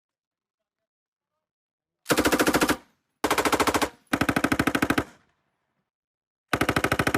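Machine gun firing four short bursts of rapid shots, the first starting about two seconds in.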